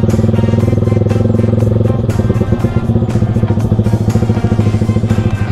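Yamaha YZF-R15's single-cylinder engine running steadily at low speed as the bike rolls slowly along.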